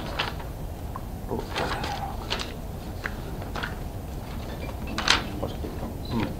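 A pause in speech: steady room hum with a few short rustles and clicks scattered through it, the loudest about five seconds in.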